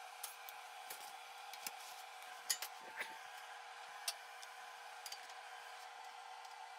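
Hand snips cutting a small strip of thin sheet steel, then a few scattered metallic clicks and clinks as the metal pieces are handled and set down on a wooden bench, over a steady electrical hum.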